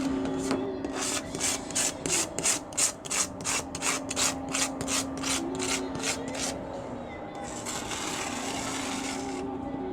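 Rapid hand scraping strokes on a car's painted panel, about three a second, a blade shaving off cured polyurethane spray-foam overspray; the strokes give way to a steadier rubbing for the last few seconds. A steady low hum runs underneath.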